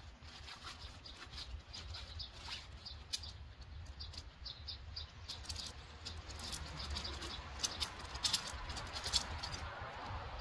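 Shock-corded tent pole sections clicking and rattling against each other as a folded pole bundle is pulled out and opened, with some rustling. The clicks come thicker and louder in the second half, over a low steady rumble.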